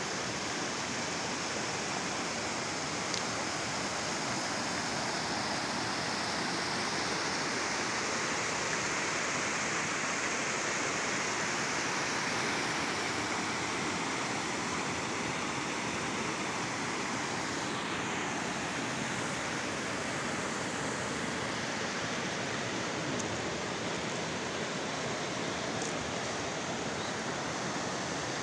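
Shallow, rocky river running fast over stones: a steady rush of water.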